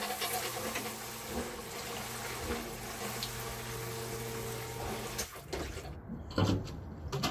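A sump pump runs in a water-filled sump pit: a steady motor hum with water churning as it pumps the pit out through newly plumbed discharge pipe on a test run. The sound cuts off about five seconds in.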